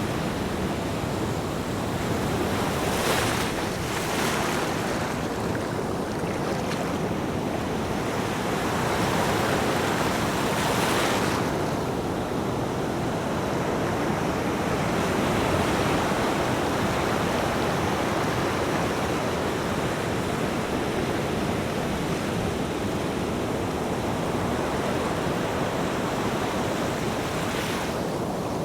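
Seawater rushing and surging in steady waves, with wind buffeting the microphone. A few brief hissing swells rise over the steady rush.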